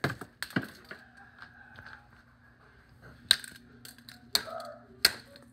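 A plastic wireless computer mouse struck hard again and again, with five sharp cracking blows at uneven spacing as its shell breaks apart.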